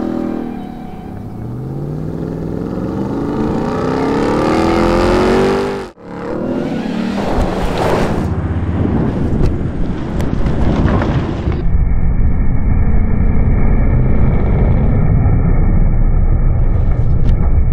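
RAM 1500 TRX's supercharged 6.2-litre V8 accelerating hard, its pitch rising steadily for about five seconds. After an abrupt cut, the engine runs on under a rough, noisy rush of tyres on loose dirt, which continues steadily to the end.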